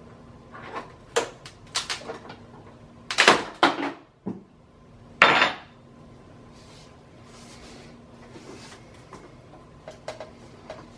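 Hand tool working along the flange of a fiberglass mold: a run of clicks and taps, with two louder scraping rasps about three and five seconds in, then lighter ticks.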